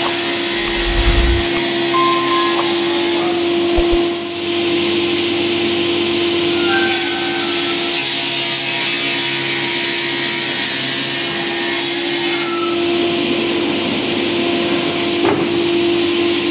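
Sliding table panel saw running, its circular blade cutting through melamine-faced chipboard. A steady whine sits under a hissing cutting noise that thins out and returns as the board feeds through, with a few low thumps about a second in.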